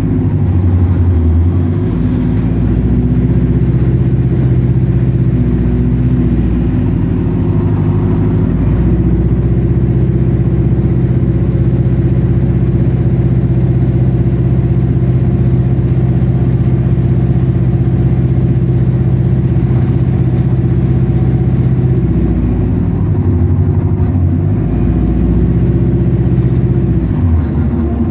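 Bus engine running under way, a steady loud hum whose pitch shifts as the engine speed changes about a second in and again near the end.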